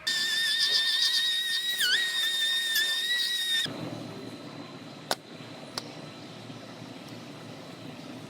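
An air tool runs with a high, steady whine that dips in pitch briefly about two seconds in as it is loaded, typical of cutting through sheet steel on the frame rail. A little after three seconds it gives way abruptly to a quieter, steady hiss with two sharp clicks.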